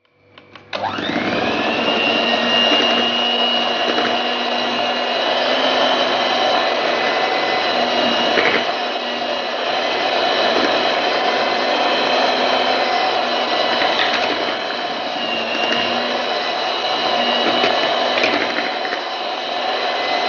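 Electric hand mixer running steadily, its twin beaters whipping cream and mango pulp in a steel bowl until creamy. It starts up about a second in, with a whine that rises as the motor comes up to speed.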